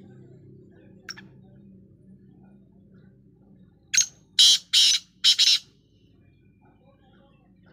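Male black francolin calling: a short first note followed by three longer, harsh, grating notes in quick succession, about four seconds in. A faint single chirp comes about a second in.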